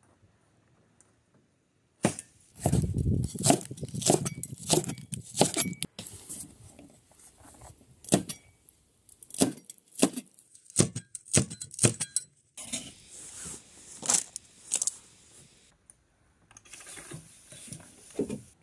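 After about two seconds of near silence, a cleaver chops and knocks on a wooden cutting board in quick, irregular strokes, with metal bowls and utensils clinking. The sound breaks off and starts again several times.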